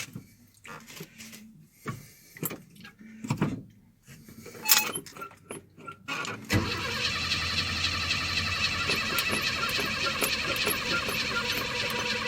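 A few scattered clicks and knocks. Then, about six and a half seconds in, the old Chevy pickup's engine sound starts abruptly and carries on steadily with an even rhythmic pulse.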